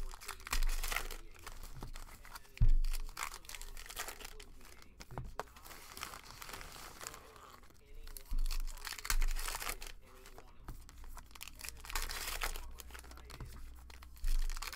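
Baseball-card pack wrappers being torn open and crinkled by hand, in repeated crackling bursts. A few dull knocks against the table, the loudest sounds, come about two and a half seconds in, around eight and nine seconds, and near the end.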